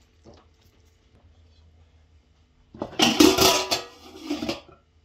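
Metal slotted spoon scraping and knocking on a metal serving tray as a roast duck is broken open and its rice stuffing spills out. There is a loud scraping, crackling burst about three seconds in and a shorter one just after.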